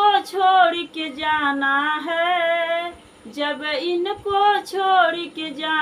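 A woman's voice singing a Hindi devotional bhajan without accompaniment, in long held, wavering notes, with a short break for breath about three seconds in.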